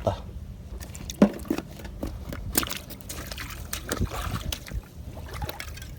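Shallow seawater sloshing and splashing, with scattered sharp clicks of stones knocking together as rocks are moved in a tide pool.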